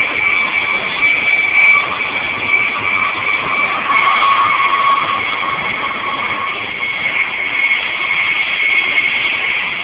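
Interior noise of an InterCity passenger coach running at high speed on a high-speed line: a loud, steady rush of wheels on rail and wind. Two high steady whines sit over it, and the lower one fades out about two-thirds of the way through.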